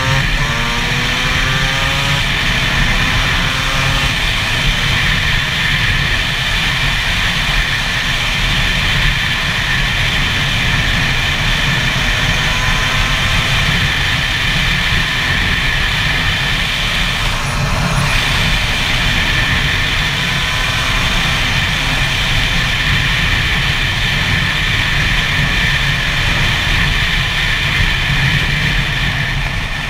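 Gas Gas EC SMR 125's two-stroke single-cylinder engine running while riding, rising in pitch as it accelerates near the start, again about midway and near the end, and otherwise holding steady revs. Wind rumble on the helmet-mounted microphone runs underneath.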